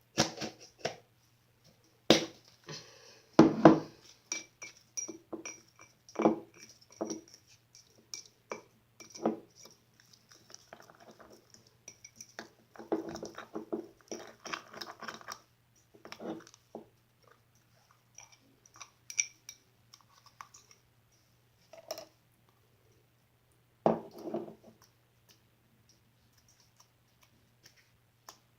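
Glossy slime being squeezed and stretched by hand: irregular wet clicks, pops and short crackly squelches, over a faint steady low hum.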